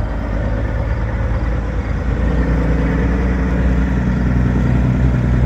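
Diesel engine of a long-hood semi tractor pulling a flatbed trailer as it drives past, a steady low engine drone that grows louder about two seconds in as the truck draws nearer.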